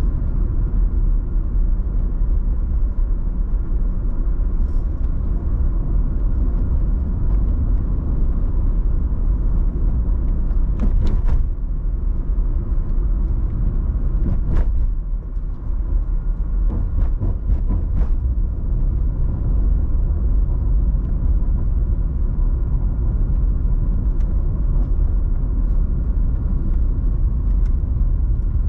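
A car driving on the road: steady low rumble of tyres and engine, with a few light clicks about halfway through.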